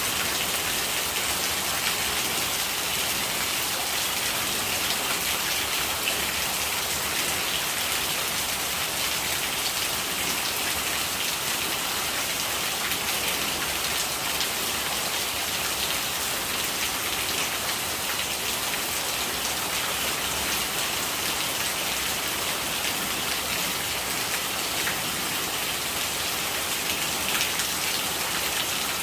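Steady rain falling, a dense even hiss of many small drops striking a surface, brightest in the upper range, with no change in strength.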